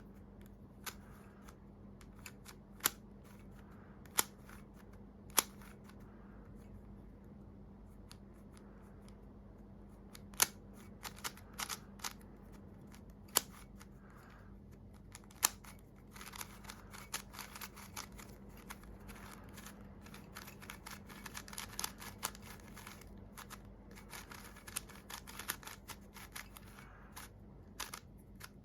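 YJ YuHu V2 M magnetic 3x3 speedcube being turned: a few single sharp clicks of separate turns, then from about halfway a quick run of clicking turns as the cube is spun.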